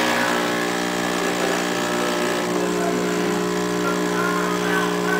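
DeLonghi Magnifica Rapid 3300 super-automatic espresso machine's pump running with a steady hum as espresso brews from the twin spouts.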